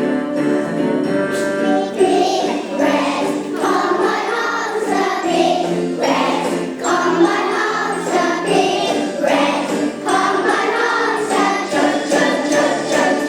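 A song: held instrumental chords, then a choir starts singing about two seconds in, over the music, with a jingling percussion beat.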